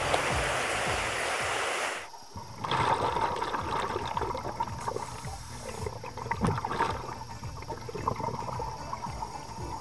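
A rushing hiss that cuts off sharply about two seconds in, then gurgling underwater bubble noise from scuba divers' exhaled breath, with scattered small pops.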